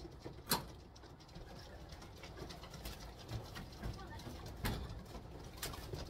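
Racing pigeons cooing at the loft, with a sharp knock about half a second in and a few lighter knocks later.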